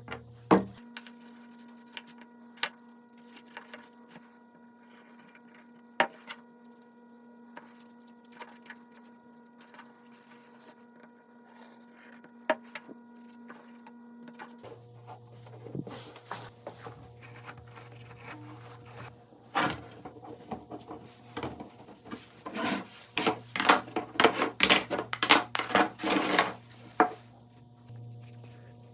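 A workshop machine's motor hums steadily, its pitch stepping up early on and back down midway, with a few sharp clicks. Then comes a run of repeated rasping bursts of a cutting tool working into wood.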